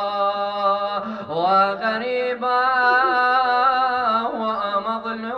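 Man chanting a slow, drawn-out melodic lament into a microphone without clear words, over a steady low drone, with short breaks between phrases.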